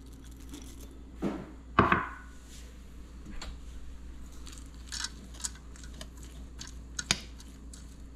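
Kitchenware clinks against a stainless steel pot: two sharp knocks with a short ring about two seconds in, then scattered lighter clicks as a spoon stirs quinoa in the pot, over a low steady hum.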